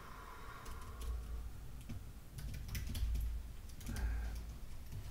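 Typing on a computer keyboard: a few irregular, scattered keystrokes.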